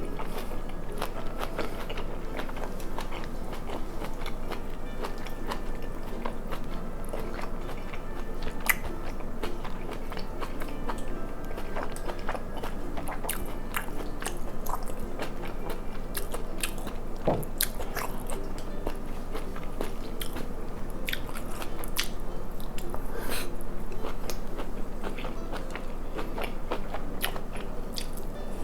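Close-miked eating: a person chewing and crunching mouthfuls of food, with many sharp wet mouth clicks and crunches throughout.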